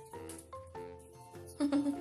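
Background music with a steady melody of held notes. Near the end, a short, louder sound cuts in briefly.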